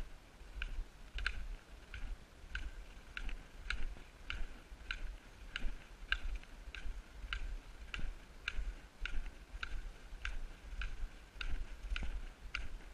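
A hiker's footsteps on packed snow: a short, crisp click with every step, about every 0.6 seconds in an even walking rhythm, over a low rumble on the microphone.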